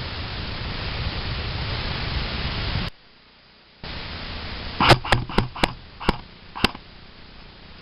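Steady hiss of wind or microphone noise, which cuts off abruptly. Then airsoft gunfire: six sharp shots in under two seconds, unevenly spaced.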